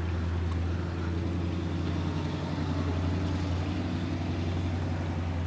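An engine idling steadily: an even low hum with overtones.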